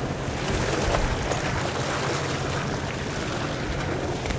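Sportfishing boat's engine running steadily, with seawater splashing and rushing along the hull and wind buffeting the microphone.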